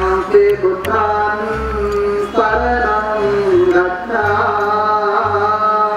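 Buddhist chanting: a man's voice holds long, slowly gliding notes through a microphone, with a low drone underneath that steps between pitches.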